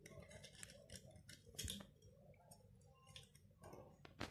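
Faint scattered clicks and light taps of small stainless steel cable-hanger hardware being handled, with a slightly sharper click about a second and a half in and another near the end.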